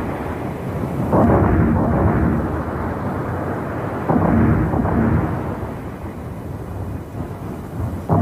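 Three deep booms about three seconds apart, each starting suddenly and dying away in a long rumble, over a steady low rumble.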